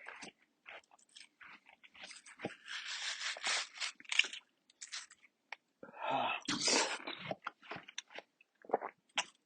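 Watermelon being bitten and chewed: wet, crackly crunching in quick irregular bites, heaviest about two to four seconds in and again around six to seven seconds.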